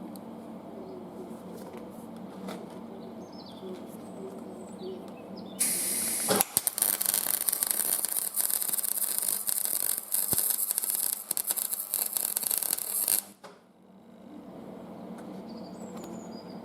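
Electric welding arc crackling and hissing as a steel 3/8 drive extension is welded onto a hook spanner. It strikes up suddenly about five and a half seconds in, runs for about seven seconds and cuts off abruptly. Before it, a steady low hum.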